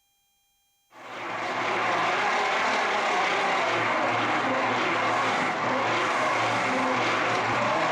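An electric power tool starts about a second in, spinning up quickly and then running steadily with a hum under a harsh rushing noise.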